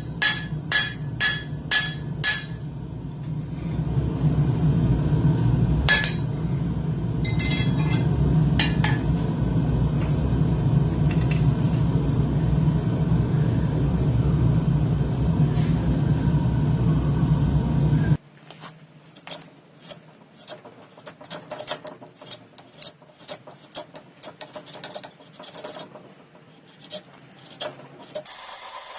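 A hand hammer striking hot steel on an anvil, about six quick blows at the start. This gives way to a loud, steady roar that cuts off abruptly about two-thirds of the way through, followed by quieter scattered clicks and scraping of metal tools.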